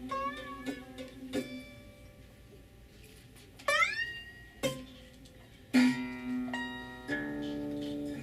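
Acoustic guitar laid flat across the lap, its strings struck and slid with a stick: sparse ringing notes, a wavering one at the start and one sliding up in pitch about halfway through.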